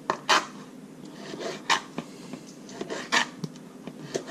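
Kitchen knife cutting a raw snapper fillet into cubes on a plastic cutting board: several separate knife strokes, each a short sharp tap as the blade meets the board, with a light rubbing between them.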